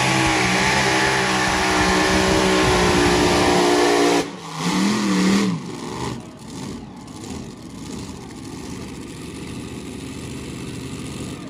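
Multi-engine modified pulling tractor running at full power with several blown engines, then cutting off abruptly about four seconds in. A brief rev follows, then only a much lower mixed background.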